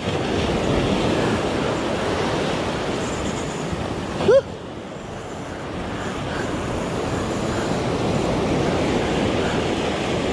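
Surf washing on the shore in a steady rush that swells and eases, with one short rising squeak about four seconds in.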